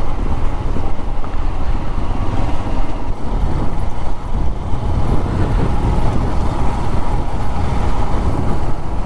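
Royal Enfield Himalayan's 411 cc single-cylinder engine running steadily while riding, mixed with a low, fluctuating wind rumble on the microphone.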